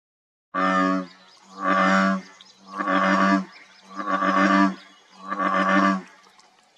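Frog calling: five long, low croaks about a second apart, starting half a second in.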